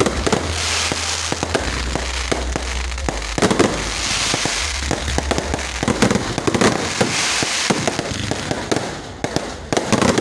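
Fireworks going off in a dense barrage: many overlapping bangs and crackling bursts, loud throughout.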